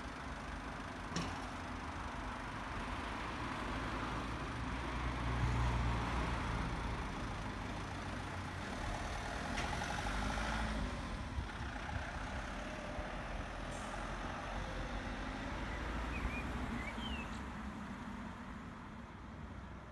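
Ambulance van's engine pulling away and driving off along the street, loudest about five to seven seconds in and fading toward the end, with no siren sounding. A few bird chirps near the end.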